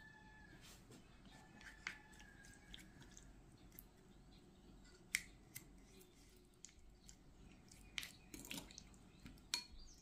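Spoon clicking and scraping against a glass bowl while stirring yogurt into sliced pickled cucumbers. Scattered sharp clicks, the loudest about five seconds in, and a wet scraping cluster near the end, over near-silent room tone.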